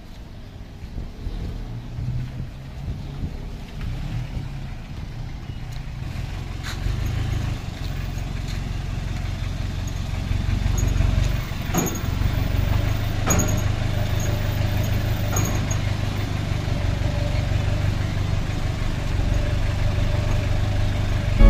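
Engine of a slow-moving vehicle running at low revs: a steady low rumble that grows louder from about halfway through, with a few sharp clicks.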